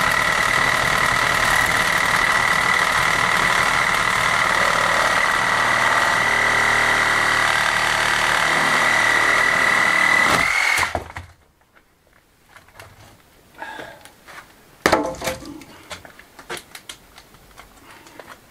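A handheld cordless power tool running steadily against an old stone-and-mud wall, then stopping suddenly about eleven seconds in. After it, a few scattered light knocks and clatters of rubble being handled.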